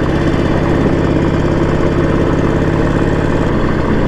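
Harley-Davidson Sportster 1200's air-cooled V-twin engine running steadily under way, its note dropping slightly about three and a half seconds in.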